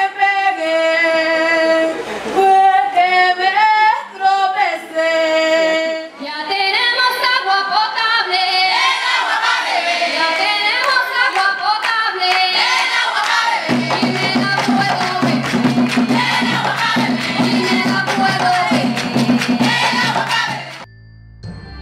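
A group of women and girls singing a folk song together into microphones, holding long notes at first. From about six seconds in the song grows livelier, with steady hand clapping, and a low steady tone joins in later. Near the end it cuts off suddenly to quiet background music.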